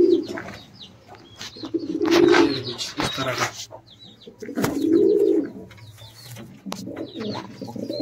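Domestic fancy pigeons cooing: three long, low coos about two to three seconds apart.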